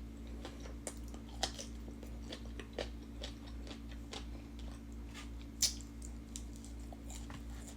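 A person chewing food close to the microphone: scattered soft crunches and wet mouth clicks, the sharpest about five and a half seconds in, over a steady low hum.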